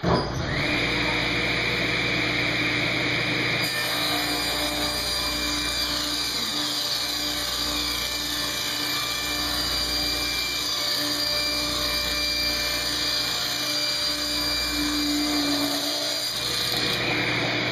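Table saw ripping a cherry board lengthwise along the fence, the blade cutting under steady load at an even feed rate. The sound eases off near the end as the cut finishes.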